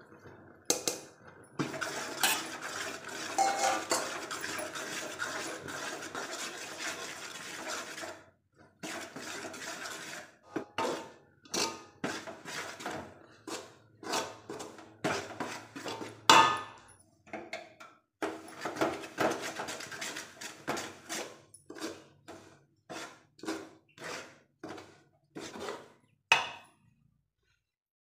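Metal spoon scraping against an aluminium pot while stirring a thick gram-flour and coconut sweet mixture. First a steady run of scraping for several seconds, then separate scrapes and knocks about one and a half a second that stop near the end.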